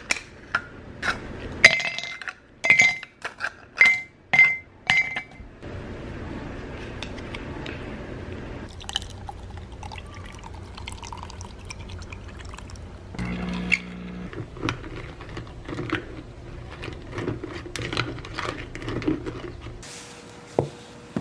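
Ice cubes dropped into a stainless steel tumbler, a quick run of ringing clinks, followed by liquid poured steadily over the ice for about fifteen seconds.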